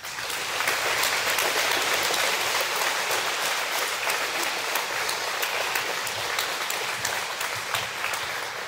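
A large crowd of schoolchildren applauding together, a dense clatter of many hands clapping at once that breaks out suddenly and eases off near the end.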